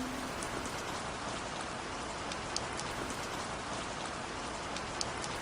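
Steady rain falling, a continuous hiss with scattered drop ticks and a couple of slightly louder drips.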